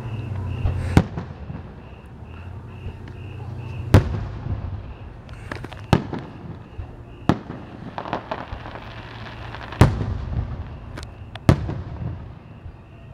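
Aerial firework shells bursting in a fireworks display: about six sharp booms, irregularly spaced one to three seconds apart, with a spell of crackling in the middle.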